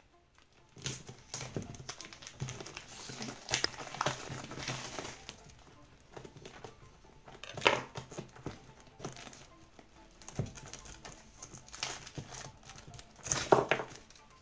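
Plastic wrapping on a new pack of trading-card toploaders being cut and torn open and crinkled by hand, in irregular rustles and crackles with louder bursts about 4, 8 and 13 seconds in.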